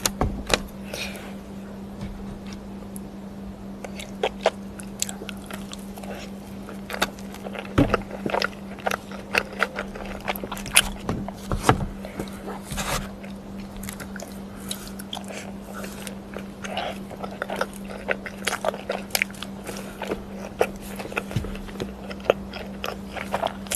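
Close-up eating sounds: a person biting and chewing crunchy food, with many sharp, irregular crunches and crackles. A steady low hum runs underneath.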